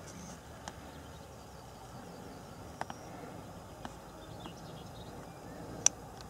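Quiet open-air ambience with faint bird chirps and a few short clicks, one much sharper click near the end.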